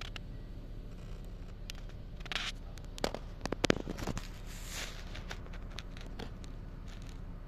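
Steady low hum with scattered sharp clicks and short rustles; a cluster of clicks about three to four seconds in is the loudest.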